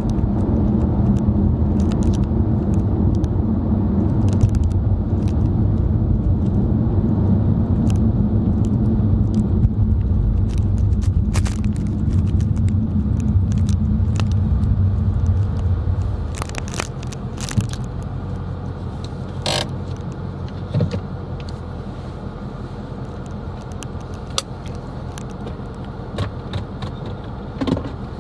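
Car cabin noise while driving: a steady low engine and road rumble that drops markedly about sixteen seconds in, with light clicks and rattles scattered throughout.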